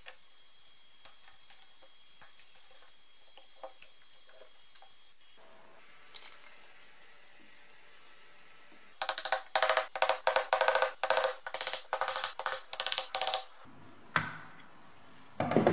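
A hammer tapping a screwdriver to drive the pressed-metal dust cover off a BMW E30 CV joint: a fast run of sharp metallic taps, about five a second, lasting roughly four seconds, starting a little past the middle. Before that there are a few light clicks of tools and parts set on the bench, and after it a couple more knocks near the end.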